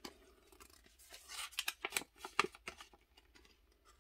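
Bubble wrap crackling and crinkling as it is handled and unwrapped. A cluster of sharp crackles and clicks falls in the middle, with faint rustling around it.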